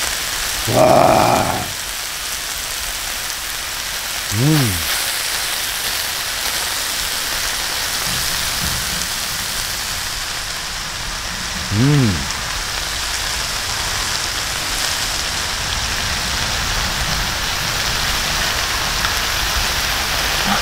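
Thin-sliced pork belly and kimchi sizzling on a hot round griddle over a portable gas stove, a steady hiss. A person's voice breaks in briefly about a second in, and there are two short rising-then-falling hums, one around a quarter of the way through and one just past halfway.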